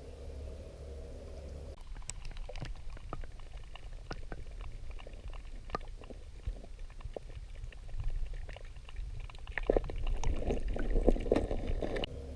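Water splashing and gurgling close by at a kayak, with many scattered small clicks and knocks. The splashing grows louder for the last couple of seconds. It opens with a steady low hum that changes abruptly about two seconds in.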